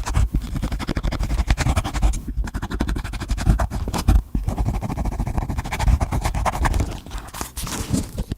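Slime being kneaded and squished by hand, a dense run of small sticky clicks and pops, with brief pauses about two and four seconds in.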